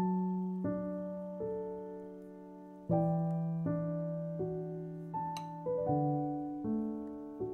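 Slow, gentle solo piano music, single notes and soft chords struck less than a second apart, each fading before the next.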